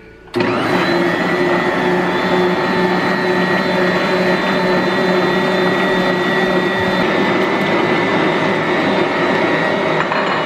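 Electric kitchen mixer switched on about half a second in, its motor then running steadily.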